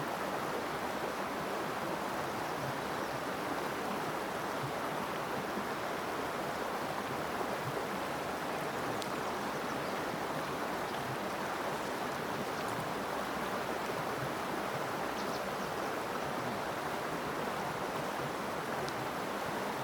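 Small mountain creek flowing: a steady rush of water over the stones.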